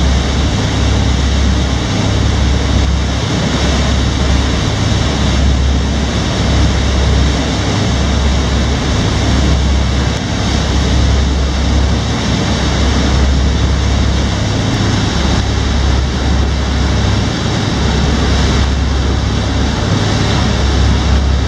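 A tour boat's engines running steadily under way, a deep low rumble, mixed with the rush of water churned up in the wake.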